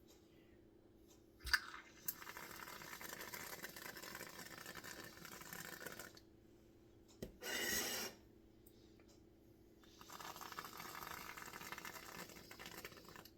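Whipped cream being sprayed from an aerosol can onto a cake: a click about one and a half seconds in, then two long hissing squirts of about four and three seconds, with a short, louder sputter between them.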